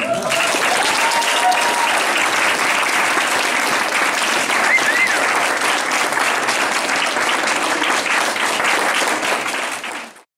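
Audience applauding after a dance performance ends, a dense steady clapping that cuts off abruptly near the end.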